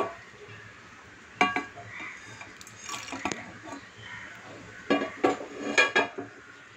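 Metal clatter of a frying pan being handled and tipped over a stainless steel mixer-grinder jar as roasted cloves go in: a few sharp knocks about a second and a half in, around three seconds, and several between five and six seconds.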